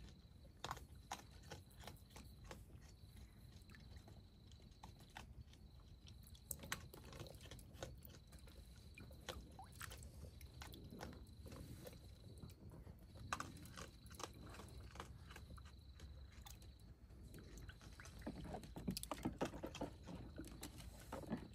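Raccoon paddling and pawing in the shallow water of a plastic kiddie pool: faint scattered clicks and small splashes, busier and louder near the end. A steady faint high tone runs underneath.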